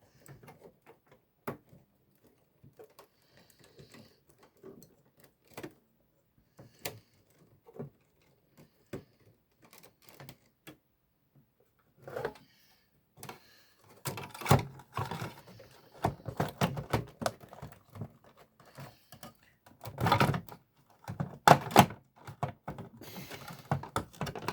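Scattered clicks and knocks of plastic and metal parts being handled inside an original Xbox, its hard drive and cable being seated. From about halfway through, the clattering turns denser and louder.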